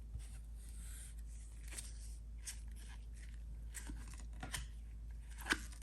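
A trading-card pack being opened and its cards handled: faint crinkling and tearing of the plastic wrapper and light scattered ticks and rustles, with one sharper click near the end.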